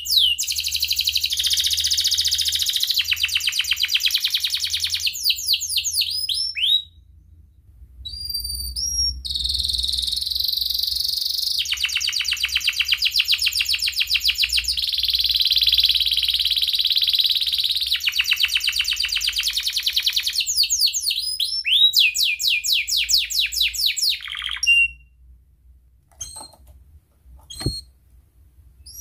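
Domestic canary singing a long, loud song of rapid trills and fast repeated swooping notes, broken by a short pause about a quarter of the way in. The song stops a few seconds before the end, leaving only a few faint clicks.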